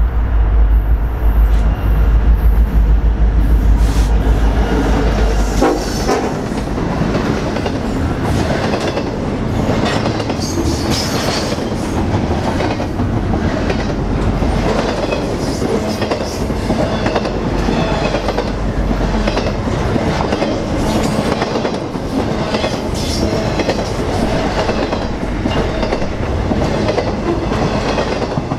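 Train passing close by: a heavy low rumble for the first six seconds or so, then the cars roll past with a steady clickety-clack of wheels over the rail joints.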